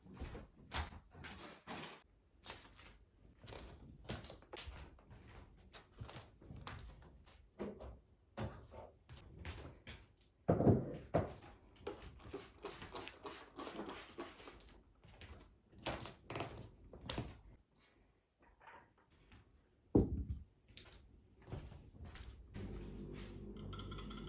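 Household objects being handled and set down: a string of knocks, clicks and clatter, with two louder thuds about ten and twenty seconds in. A steady low hum starts near the end.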